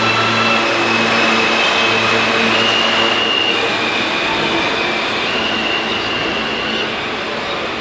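New York City Subway train running on the rails, with the rumble of the cars and wheel squeal in several high, held tones that shift in pitch. The sound eases a little near the end.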